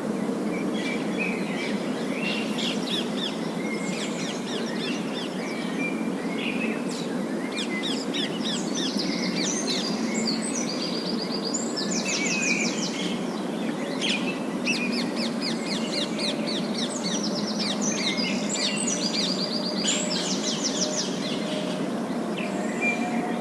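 Parakeets chirping, with overlapping short calls and quick rattling trills, over a steady low background hiss.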